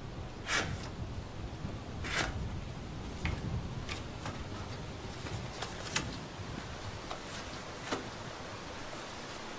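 Paper and card being handled: a photograph slid into a cardboard folder, giving about half a dozen short sharp rustles and taps, the loudest about half a second and two seconds in, over a steady background hiss.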